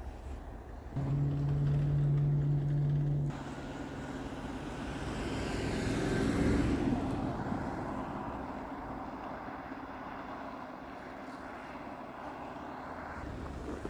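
A vehicle passing by outdoors, its noise swelling to the loudest point about six and a half seconds in and then fading, with its pitch sliding down as it goes by. Before it, a steady low tone starts suddenly about a second in and stops after about two seconds.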